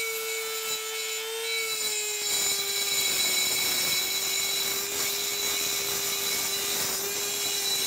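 Small high-speed rotary tool (die grinder) with a thin abrasive cutoff disc, grinding into cast iron to open up a crack before brazing. A steady high whine sags slightly in pitch about two seconds in as the disc bites, and a gritty grinding noise grows louder from there.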